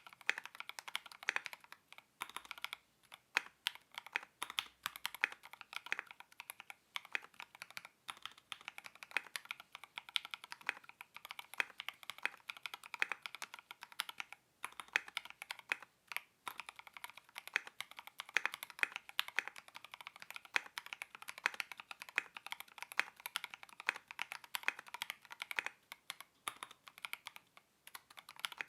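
Continuous fast typing on a Mojo68 mechanical keyboard with lubed Gateron Ink Black V2 linear switches and ABS keycaps, a dense run of keystroke clacks with brief pauses about 2 and 14 seconds in.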